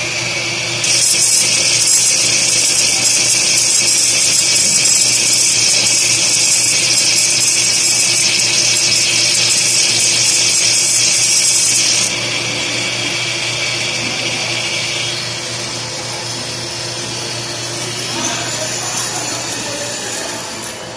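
CNC wire EDM machine cutting steel under a flood of coolant: a loud, even, high-pitched hiss over a low steady hum. The hiss becomes quieter about twelve seconds in.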